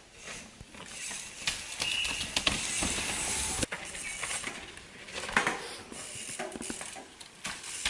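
Downhill mountain bike riding past on a dirt track: tyres hissing and scrubbing over loose ground, with the chain and bike parts rattling and clicking.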